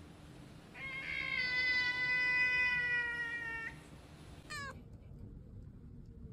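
A cat's long drawn-out meow, held about three seconds with a slowly falling pitch. A brief high sound sweeps downward about a second later.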